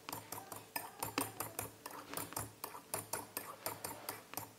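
A stirring utensil clicking against a glass mixing bowl about four to five times a second as whipped egg batter is stirred by hand.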